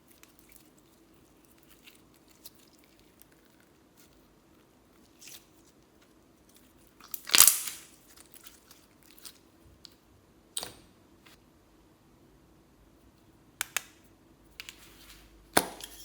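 Slime being worked by hand: scattered sticky crackles and small pops, with one louder, longer pop about seven and a half seconds in and a few sharp clicks near the end.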